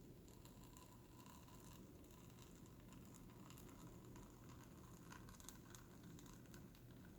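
Very faint crackling and scratching of a heated foam-cutter pen melting its way through Kaizen foam.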